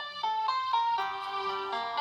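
Preloaded ringtone melody playing from a BlackBerry Curve 8310's speaker: a quick tune of short pitched notes, several a second.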